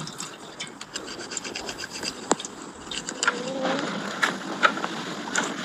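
Rapid, rhythmic scraping strokes from hand work, with scattered clicks. A short wavering tone sounds a little past halfway.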